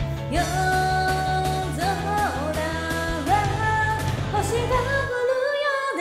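A woman singing along live to a karaoke backing track of a Japanese pop-rock song. The bass drops out for about a second near the end, then comes back.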